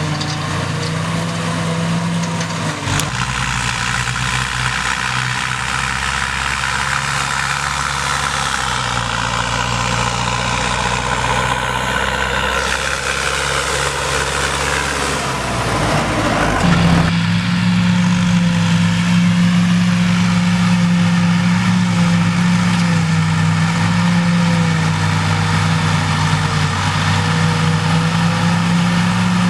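Massey Ferguson 6465 tractor engine running steadily under load while driving a JF900 trailed forage harvester through first-cut silage, with the harvester's chopping whir over it. The engine note changes about three seconds in and again around sixteen seconds in, then holds steady.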